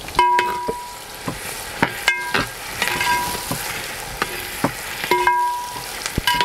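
Chopped onions and green chillies sizzling in hot oil while a perforated metal ladle stirs them, scraping and clanking against the metal pot. About six strikes ring out over the sizzle.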